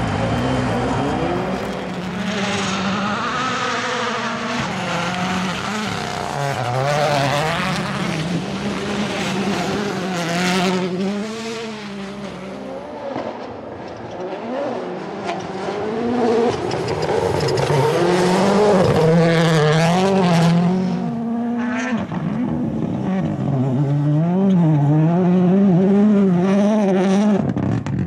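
Rally cars driven flat out, their turbocharged four-cylinder engines revving up and dropping back again and again through gear changes and lifts, with tyres sliding and squealing at times.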